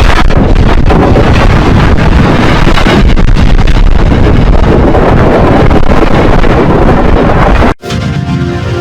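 Bubble Bass's cartoon burp sound effect, heavily processed and distorted into a long, very loud, rough rumble that cuts off suddenly near the end. It is followed briefly by the start of the next processed version, which carries a steady musical pitch.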